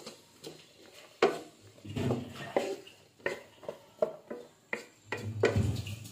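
Wooden spatula stirring chopped onion, capsicum and garlic in a non-stick frying pan: irregular scrapes and knocks of the spatula against the pan, about one every half second to a second.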